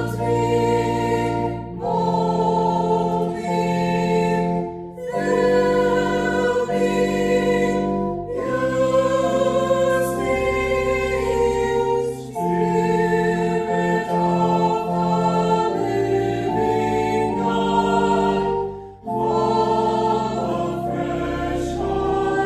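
Choir singing a slow hymn in held chords, phrase by phrase, with short breaks between the phrases.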